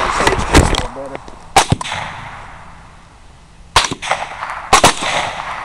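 Gunshots from two hunters shooting at a charging wild boar. They come in irregular groups: several close together in the first two seconds, then more about four and five seconds in, each sharp crack followed by a short echo.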